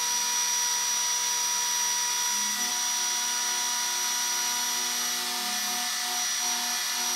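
Trim-router spindle of a Genmitsu 4040 Pro Max CNC (710-watt) running at speed while the machine cuts out thin wood veneer pieces: a steady high whine over an even hiss, with lower tones that shift in pitch a couple of times.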